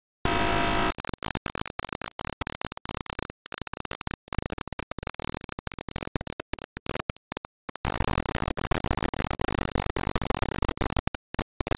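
Audio looped over only a few milliseconds, making glitchy noise music: a buzzing pitched tone for under a second, then choppy stuttering noise broken by sudden dropouts, which turns denser about eight seconds in.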